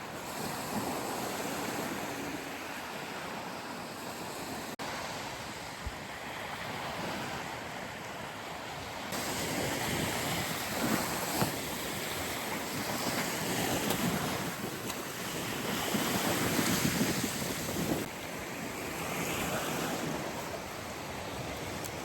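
Sea waves washing onto the shore in surges, with wind buffeting the microphone; the sound changes abruptly twice.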